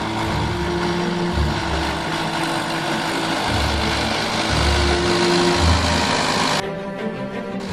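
New Holland TD100 tractor's diesel engine running steadily under load while pulling a five-furrow plough. Near the end the sound goes dull for about a second, as its high end drops out.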